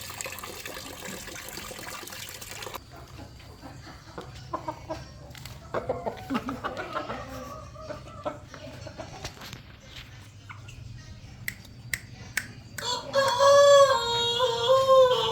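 Water running for the first few seconds, then scattered knocks and short clucking calls. Near the end a Saigon rooster crows loudly, one long call that falls away at its close.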